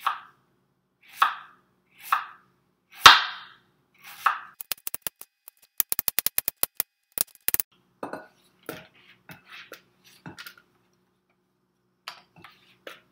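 A sharp knife slicing raw beets thinly, each stroke ending in a knock on the cutting board: a handful of separate chops, the loudest about three seconds in, then a fast run of light ticking taps around the middle and softer cuts after.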